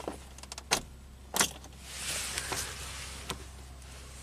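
Car ignition key being turned: a few sharp clicks, the loudest about a second and a half in, then a soft rustle. The engine does not crank.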